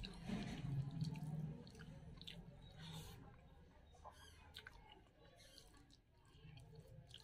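A man eating biryani with his hand: faint wet chewing and soft clicks of mouth and fingers. A low hum in the first second and a half is the loudest part.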